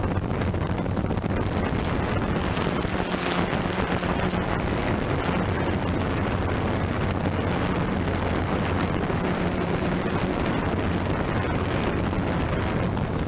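Quadcopter drone's propellers buzzing under heavy wind noise, picked up by the drone's own onboard microphone; a low hum swells and fades while the rushing noise holds steady.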